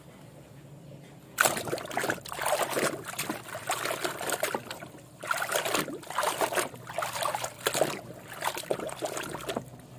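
Water splashing and trickling as a muddy toy excavator is washed by hand, starting about a second and a half in and going in irregular bursts.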